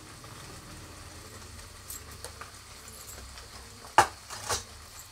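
Tomato-onion masala simmering in a kadhai, a low steady bubbling with a few soft spatters and one sharp pop about four seconds in.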